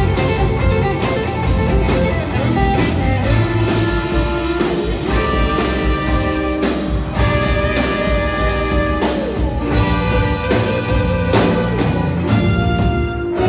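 Live rock band playing loudly, with electric guitar, a steady drum beat, and a horn section of saxophones, trombone and trumpet.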